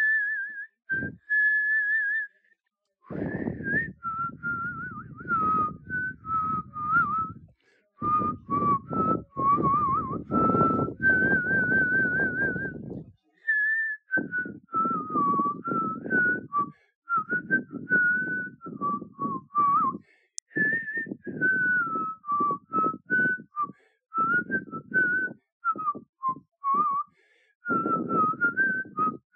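A person whistling a tune in short phrases with brief pauses, one clear note at a time with breath noise underneath, including a long wavering held note about a third of the way in.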